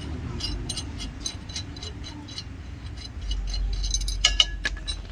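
Light metallic ticking, about three ticks a second, from hand tools or loose parts being handled during a brake job. About four seconds in come a few louder metal clinks with a short ring.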